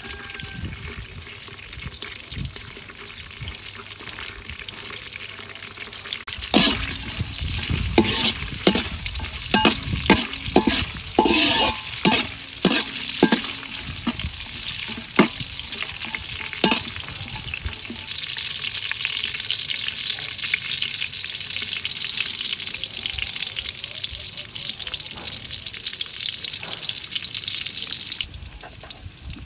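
Chopped garlic and star anise sizzling in hot oil in a metal wok. For about ten seconds from roughly a third of the way in, a metal spatula scrapes and clinks against the wok in sharp strokes. After that the sizzle runs on, steady and a little louder.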